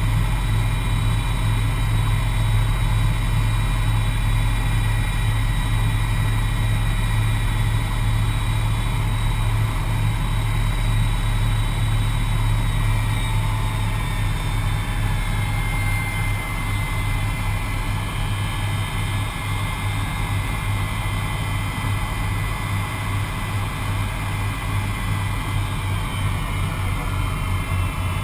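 The Avro Vulcan's four Rolls-Royce Olympus turbojets heard from inside the aircraft: a loud, steady deep drone with thin high whines on top. The whines glide a little in pitch in the second half, and the sound grows slightly quieter about halfway through.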